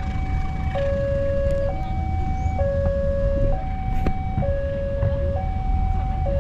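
Railway level-crossing warning alarm sounding: an electronic two-tone signal switching between a higher and a lower tone, each held just under a second, warning of an approaching train. A low rumble runs underneath.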